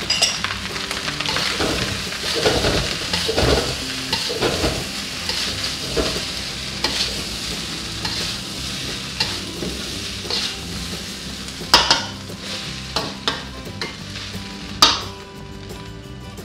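Fried rice sizzling in a wok as a metal spatula stirs and scrapes through it. The sizzle weakens in the second half, and the spatula knocks sharply against the wok a few times near the end.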